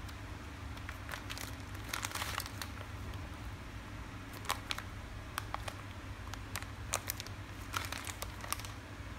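Clear plastic packaging bags crinkling in several short spells of crackle as they are handled.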